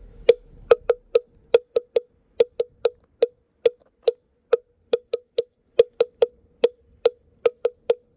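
A wooden moktak (Korean Buddhist temple block) struck over and over, a run of hollow knocks at about three a second, each with a short ringing tone.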